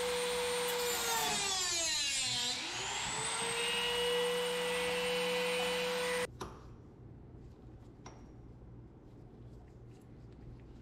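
Handheld rotary tool spinning an abrasive cut-off disc against thin sheet metal: a high, steady whine whose pitch sags about two seconds in and climbs back. It stops abruptly about six seconds in, leaving only a few faint clicks.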